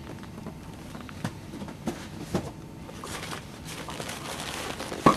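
Packing being handled: a plastic bag and cardboard box rustling as a bagged video camera is lifted out, with a few light knocks and one sharp knock near the end.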